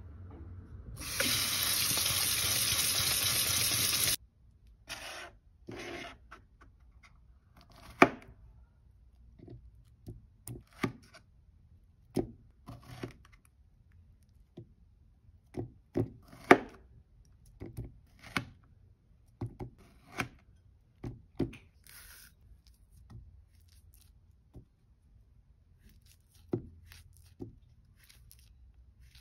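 Kitchen tap running into a stainless steel sink for about three seconds as strawberries are rinsed. Then a knife cutting strawberries and a banana by hand over a plastic yogurt tub: scattered sharp clicks and taps, a few of them much louder than the rest.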